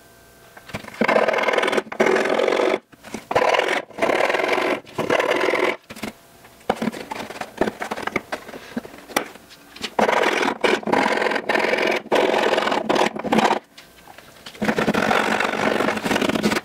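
Hand filing and sanding of the cut edge of a hole in a fiberglass door: rough rasping in runs of strokes a second or two long, with short pauses between them, as the hole is opened out to fit the handle's inner ring.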